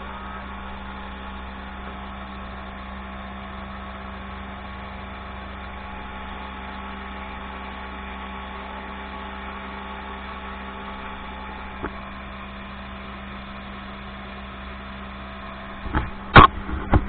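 Speedboat engine running at a steady speed, a steady hum. A few sharp knocks come near the end.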